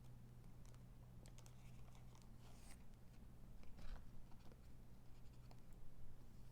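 Faint rustling, scraping and light tapping of Pokémon trading cards being handled, with a few short scratchy noises, over a steady low hum.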